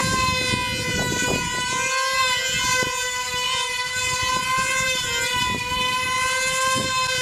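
Two-stroke glow engines of F2D control-line combat models running flat out in the air, a steady high-pitched whine that wavers slightly in pitch as the models circle, over a low rumbling noise.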